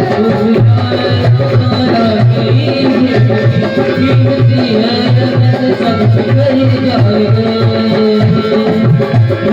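Instrumental interlude of a Hindi devotional bhajan: a steady hand-drum beat at about two to three strokes a second under a held melody.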